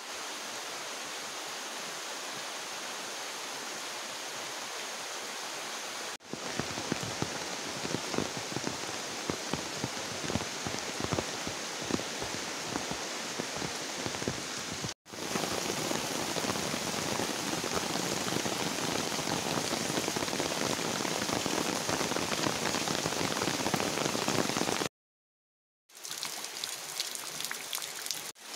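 Heavy rain falling on water, leaves and ground: a steady hiss thick with close drop splashes. The sound changes suddenly several times, and it drops to a second of silence about 25 seconds in.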